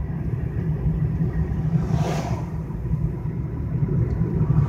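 Steady low rumble of road and engine noise inside a moving car's cabin, with a brief rushing swell about two seconds in.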